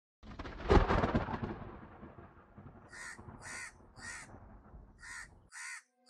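A loud low boom about a second in, fading into a long rumble. A crow then caws six times, in two runs of three.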